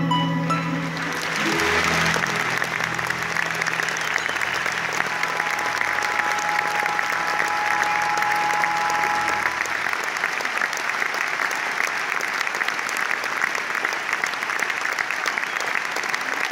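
A large audience applauding as the final notes of the orchestra and guitar die away in the first second. Low held tones sound under the applause until about two-thirds of the way through.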